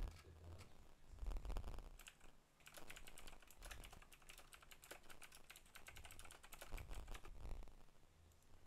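Typing on a computer keyboard: a quick run of key clicks through the middle, with a low thump about a second in.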